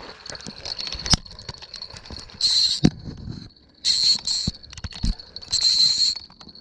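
Spinning reel's drag buzzing in three short bursts, about 2, 4 and 6 seconds in, as a hooked carp pulls line off, with a few sharp knocks of handling in between.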